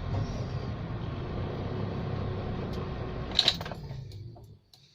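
Toyota Avanza's engine idling steadily on a freshly fitted battery, then a click about three and a half seconds in as it is switched off, the running sound dying away to quiet within a second.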